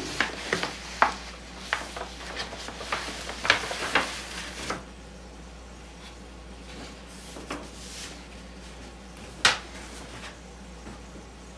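A large manila paper envelope being handled and shaken out: crinkling and crackling paper with light knocks of small items on the table. It is busiest in the first half, with one more sharp crackle near the end.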